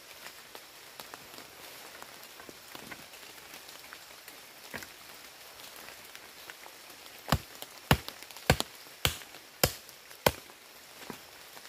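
Steady rain falling, with six sharp chopping blows in quick succession, a little over half a second apart, starting about two-thirds of the way in.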